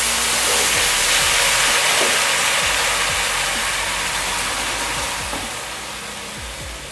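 Marsala wine hissing and sizzling loudly in a hot skillet just after being poured in over high heat, the hiss slowly fading as the wine settles into a boil to reduce.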